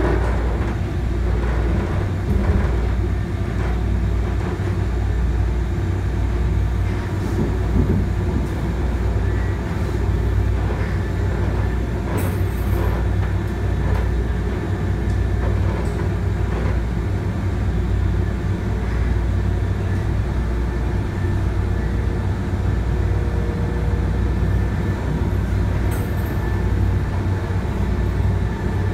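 Inside an MBTA Green Line light rail car running along the track: a steady low rumble of wheels on rail and running gear, with occasional light clicks and rattles.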